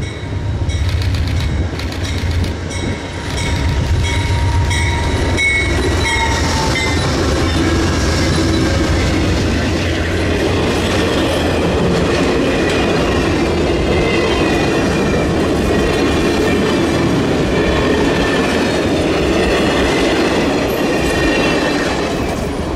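Amtrak passenger train passing close by: a diesel locomotive rumbling low as it approaches, then a long string of private passenger cars rolling past with clickety-clack of wheels over the rail joints and high-pitched wheel squeal, the noise easing near the end as the last cars go by.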